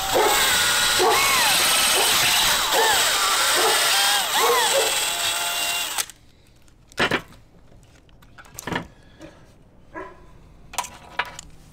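DeWalt 20V XR cordless drill boring a hole through a thin metal strip clamped in a vise. It runs steadily for about six seconds, then stops suddenly. Dogs bark repeatedly over the drilling, and a few light knocks follow once it stops.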